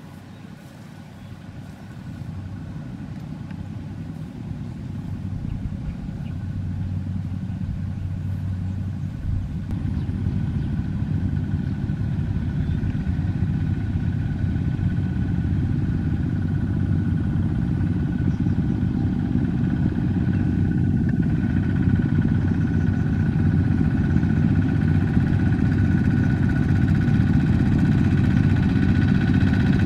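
Several Kubota two-wheel walking tractors pulling loaded trailers, their single-cylinder diesel engines chugging steadily and growing louder as they come closer.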